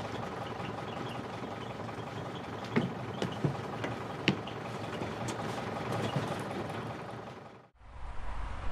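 A vehicle engine idling steadily, with a few sharp clicks and knocks over it. It fades out to a moment of silence near the end.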